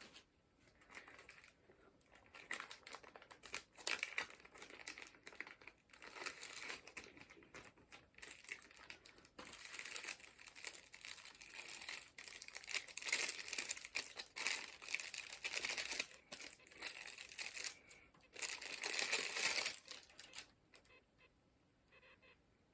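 Plastic packaging crinkling and rustling in irregular bursts as it is handled, heaviest in the second half and stopping shortly before the end.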